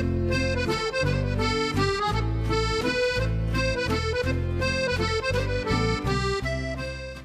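Accordion music with a melody over steady bass chords, fading out near the end.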